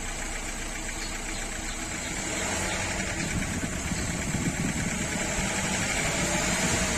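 Renault 1.3 TCe turbocharged four-cylinder petrol engine idling, then revved from about two seconds in. It gets louder and a thin whine rises in pitch: the noise the engine makes when accelerating.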